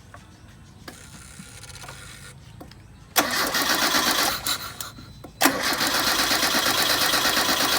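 Car engine being cranked by its starter motor in two attempts: a short one of about a second, then after a brief pause a longer one of about three seconds.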